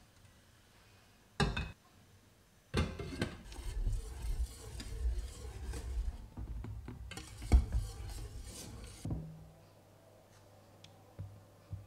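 Dishes and cutlery clattering and scraping for about six seconds, after a single short knock. A steady low hum is left once the clatter stops.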